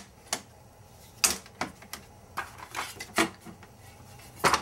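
Handling clatter of pistols in a small steel portable gun safe: about half a dozen separate sharp clicks and knocks of hard objects against the case and each other, loudest about a second in and again just before the end.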